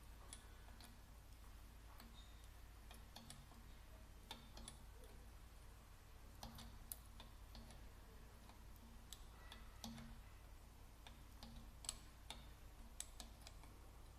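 Faint, irregular clicks and light taps of small metal parts and tools being handled while working on a diesel injection pump, over a steady low hum; the clearest clicks come about 7 and 12 seconds in.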